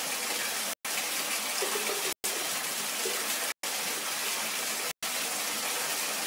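Water running from a bathtub faucet into the tub, a steady rushing splash. The sound cuts out completely for an instant about every second and a half.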